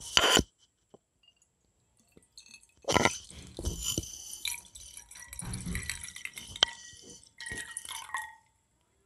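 Water poured from a plastic bottle splashing into a glass bowl over submerged earbuds, starting about three seconds in and stopping shortly before the end. A brief loud handling noise sounds at the very start.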